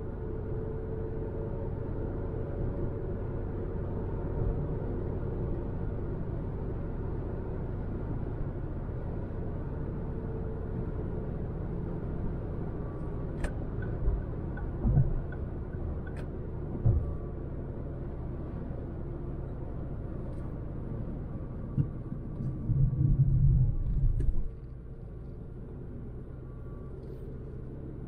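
A 2006 Ford Focus with a 100 bhp petrol engine driving along: a steady low rumble of engine and road noise. There are a few short thumps midway, and near the end a louder rumble for about two seconds that cuts off sharply.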